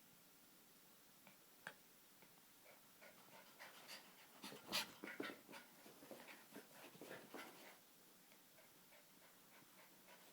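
Jack Russell terriers playing, making a cluster of short, faint dog sounds from about three seconds in until near the end; the rest is near silence.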